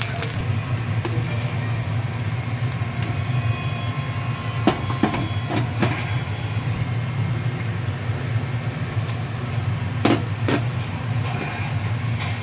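A steady low hum of kitchen machinery runs throughout, with a few sharp clinks of a cooking utensil against the cookware, about five seconds in and again about ten seconds in.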